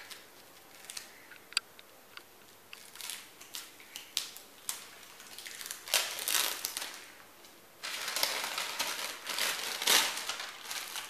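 Plastic packaging crinkling and crackling as it is cut open with a knife and pulled off a spool of kite string. There are scattered small clicks and rustles at first, then louder crinkling in bursts from about six seconds in, densest near the end.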